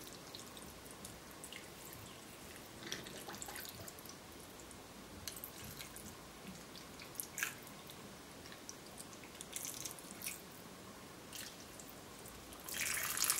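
Water poured in a thin stream from a jug into glass jars packed with chickpeas and meat, trickling and dripping faintly, briefly louder near the end.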